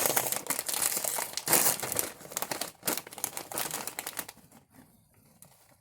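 Crinkling of a bag of barbecue potato chips being handled, dense crackling for about four seconds that then dies away.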